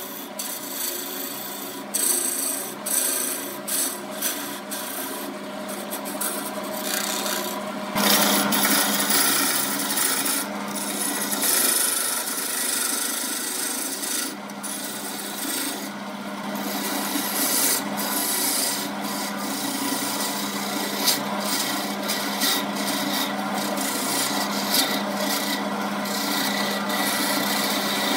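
Wood lathe running while a hand-held turning tool cuts into the spinning wood blank: a continuous scraping of shavings over the steady hum of the lathe. The cutting gets louder about eight seconds in.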